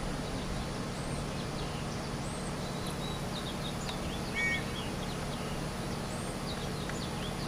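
Steady outdoor background noise with small birds chirping now and then, including a brief two-note call about halfway through.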